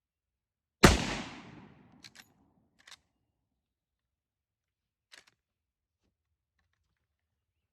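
A single loud .30-30 rifle shot from a Westernfield Model 30A lever-action, its report dying away over about a second. A few faint clicks follow.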